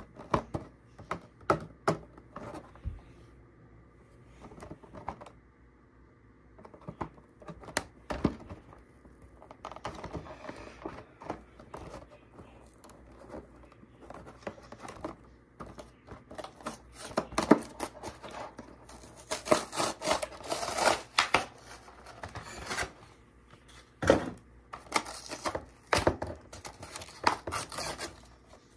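Clear plastic blister packaging of an action figure being handled and opened: scattered knocks and taps at first, then loud, dense crinkling and crackling of plastic from about halfway through.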